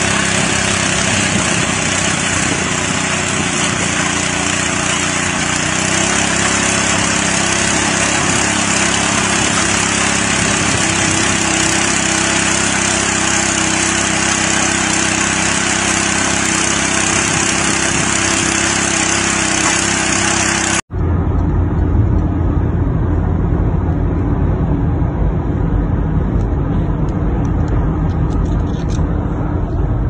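Small petrol engine of a rotary garden tiller running steadily as its tines churn the soil. About two-thirds through it cuts off abruptly and is replaced by the deep, steady rumble of a car driving, heard from inside the cabin.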